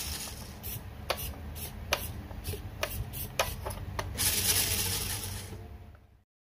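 A plastic 1:14 scale RC truck chassis being handled on a cutting mat: a string of light clicks and taps, about nine in three seconds, then a rubbing slide, before the sound fades out.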